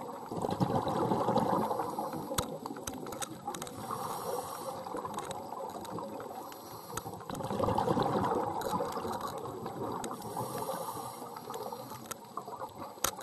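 A scuba diver breathing through a regulator, heard underwater: two bursts of exhaled bubbles rumbling, each followed by the hiss of an inhalation, one breath about every six seconds. A few sharp clicks come between them.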